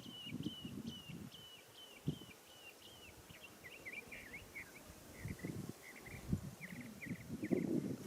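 A songbird singing a run of evenly repeated chirps, about three a second. About three seconds in the song changes to quicker, lower twittering notes. Irregular low thumps and rumbling run under it, loudest near the end.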